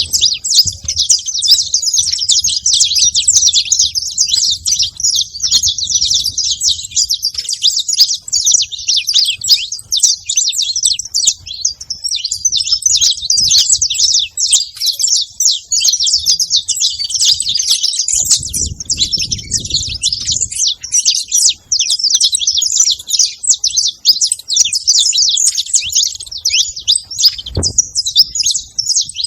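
A flock of saffron finches chirping continuously at a feeding spot, many short calls overlapping into a constant high chatter. A low rumble comes about two-thirds of the way through, and a brief low thump near the end.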